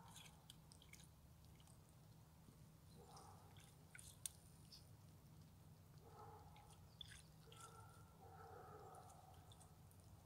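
Faint scattered clicks and crunches of a common raven's beak pecking at ice, over a low steady hum; two sharper taps come about four and seven seconds in.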